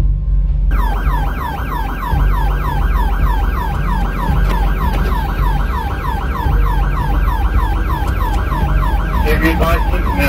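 Police cruiser siren in rapid yelp mode, about four quick rising-and-falling wails a second, over the cruiser's engine and road rumble. The siren starts just under a second in and fades out near the end.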